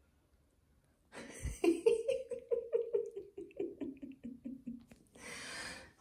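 Laughter: a sharp intake of breath about a second in, then a long string of short 'ha' pulses, about four or five a second, falling steadily in pitch, and a long breath out near the end.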